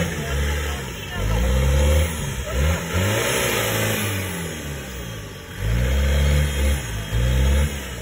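Off-road 4x4 vehicle's engine revved hard in repeated bursts, the pitch rising and falling with each blip of the throttle, easing off in the middle before revving again.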